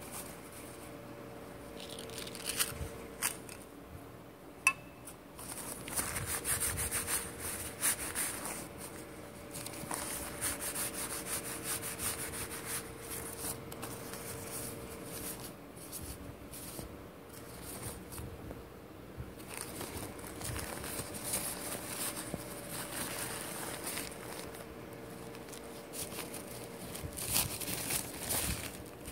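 Paper towel rustling and crinkling as small lead airgun slugs are handled and rolled in it, with a few sharp clicks in the first few seconds.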